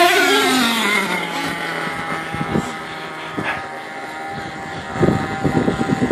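Small nitro engines of radio-controlled monster trucks. One winds down from high revs in the first second or so and settles to a steady idle under a steady high whine, then gives short, irregular bursts near the end.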